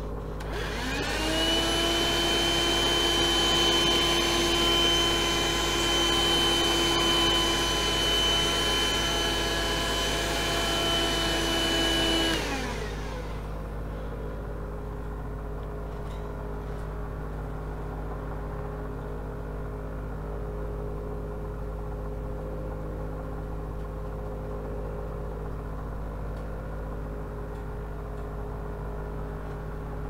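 Dirt Devil Scorpion cordless hand vacuum switched on, running with a steady high whine for about twelve seconds, then switched off, its pitch falling as the motor winds down.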